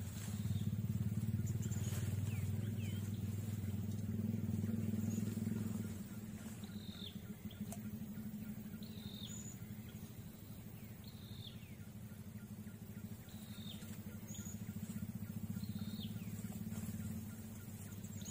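A small engine running steadily with a fast low pulse. It is louder for about the first six seconds, then drops and stays lower. A bird repeats a short, high, falling call about once a second over it.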